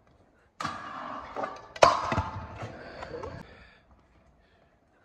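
Stunt scooter riding on a ramp or ledge: wheels rolling, a sharp loud impact about two seconds in as the scooter hits the obstacle, then rolling that fades away.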